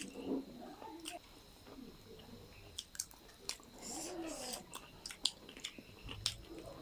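Close-up chewing and biting of food, with scattered sharp clicks and small crunches.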